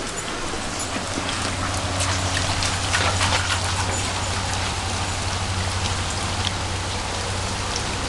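Steady rain falling, heard through an open back door, with a few sharper taps and drips about two to three seconds in.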